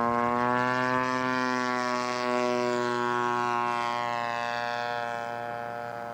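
Engine of a radio-controlled scale model Spitfire droning in flight, a single steady tone whose pitch rises in the first second, then slowly falls as it fades a little.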